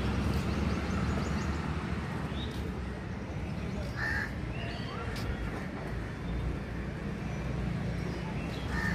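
Outdoor ambience: a steady low traffic rumble with crows cawing a few times, the clearest call about four seconds in.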